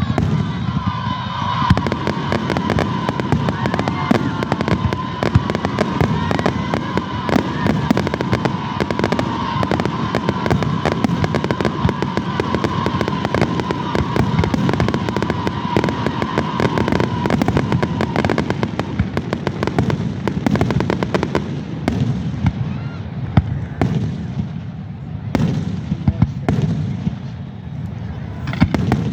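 Fireworks going off in a dense, continuous barrage of bangs and crackles. A steady whistling tone runs over them from about a second in until about two-thirds of the way through.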